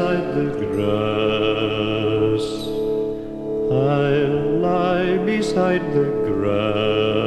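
Background music: a slow song with long, wavering sung notes over a steady drone.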